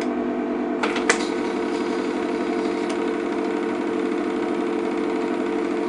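Film projector running: a steady mechanical whirr with an even, unchanging pitch, and two sharp clicks about a second in.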